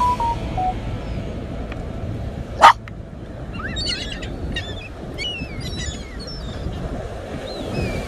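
Seagulls calling, a flurry of short sliding cries that starts about halfway through, over a steady rumble of wind and surf. A little before the calls begin there is one short, very loud burst.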